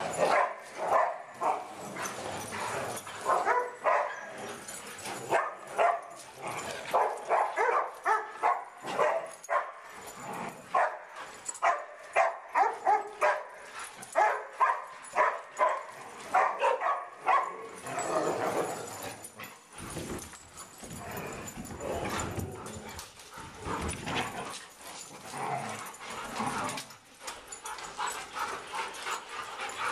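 A group of dogs barking during rough play, many sharp barks in quick succession. After about two-thirds of the way through, the barking becomes sparser.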